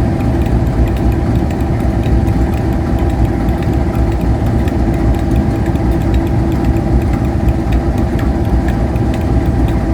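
KiwiRail diesel locomotive engine idling, a steady deep drone with light clicks, holding an even pace without revving.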